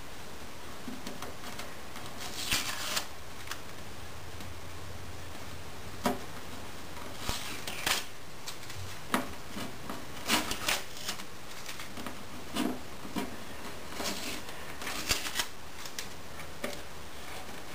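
Blue masking tape crinkling and peeling under the fingers along the edge of a guitar body: irregular short crackles and rustles, some louder than others.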